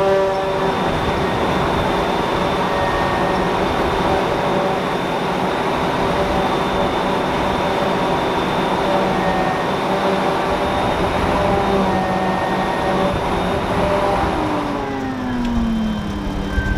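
Claas Jaguar forage harvester running under load as it picks up and chops a grass swath: a loud, steady machine drone. Near the end the drone thins and drops in pitch as the machine eases off.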